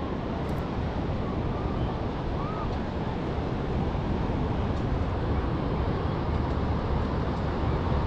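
Steady outdoor ambience: wind buffeting the microphone as a low rumble over the wash of breaking surf, with faint distant voices.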